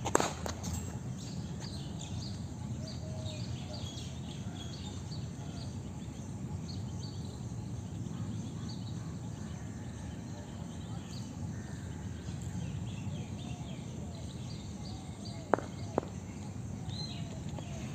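Cricket ball knocking sharply off the bat right at the start, then near the end two sharp knocks less than half a second apart: a delivery pitching on the concrete net pitch and being struck by the bat. Between them, steady outdoor background with birds chirping faintly.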